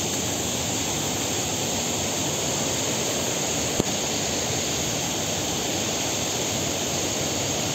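Steady, even hiss of falling rain, with one brief knock about four seconds in.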